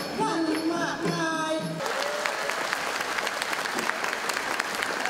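A woman singing a Thai folk song into a microphone with accompaniment, which stops about two seconds in; audience applause then carries on.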